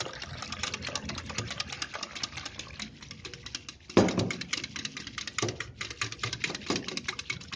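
A fork beating a thin gram-flour and curd batter in a ceramic bowl, its tines clicking rapidly against the bowl several times a second. A louder knock comes about four seconds in.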